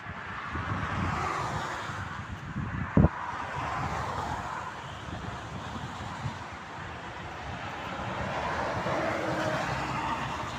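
Motorway traffic passing, vehicles swelling up and fading away with tyre and engine noise, one passing early on and another near the end. A single short, sharp knock about three seconds in is the loudest sound.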